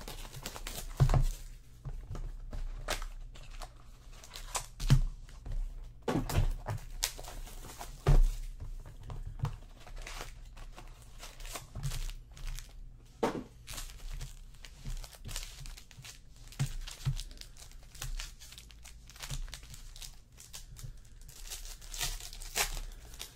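Foil trading-card packs of 2014 Panini Select Football being torn open and crinkled by hand, with irregular taps and clicks as the cards are handled.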